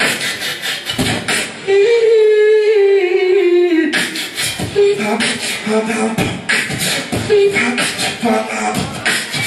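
Beatboxing into a handheld microphone: rapid vocal drum sounds, with a single held note from about two seconds in to about four, then drum sounds mixed with short sung tones.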